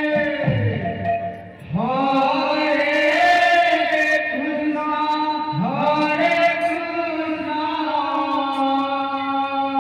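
Male kirtan singing into handheld microphones: long, held devotional chant phrases, each new phrase sliding up in pitch into its note, about two seconds in and again near the middle.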